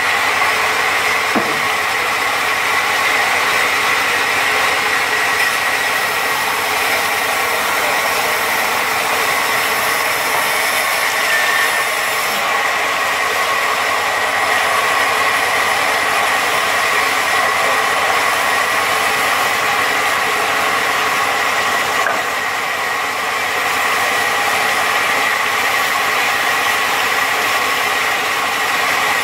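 Log band saw mill running and sawing lengthwise through a log as it is fed past the blade: a loud, steady mechanical din with a high ringing tone.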